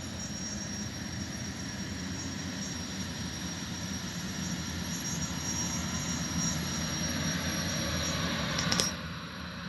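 Boeing 929 Jetfoil's twin gas turbines running with a steady high whine over the rush of its waterjets churning the water, growing gradually louder as the vessel moves closer. A short click sounds near the end.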